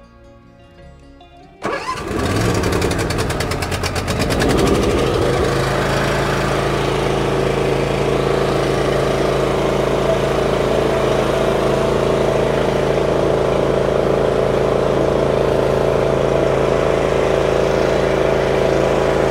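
Lawn mower engine starting about a second and a half in: a quick run of rapid firing strokes as it catches, then running steadily at an even speed.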